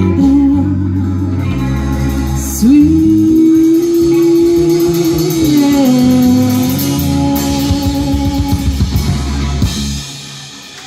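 Live rock band playing with drum kit, guitar and singing, with a long held note through the middle. The music stops just before the end.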